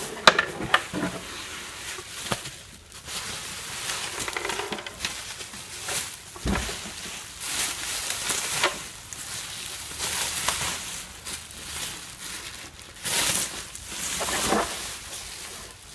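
Plastic bubble wrap rustling and crinkling in irregular bursts as it is pulled out of a cardboard box and unwrapped by hand, with one dull thump about six and a half seconds in.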